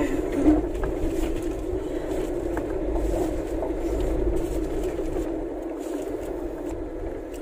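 Steady car cabin noise from a moving car: a low hum of engine and tyres on the road, easing off a little near the end.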